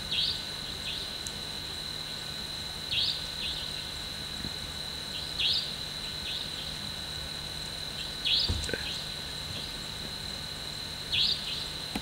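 A steady high insect trill, like crickets at night, with a short high-pitched bird call repeating about every three seconds, each call followed by a fainter second note.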